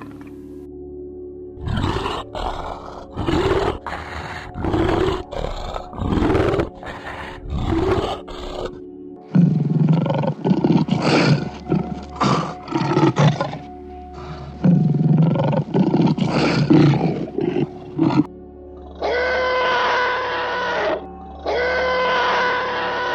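A series of animal calls, first about six separate rising-and-falling ones, then a denser run, and near the end two long calls held at one pitch, over quiet background music.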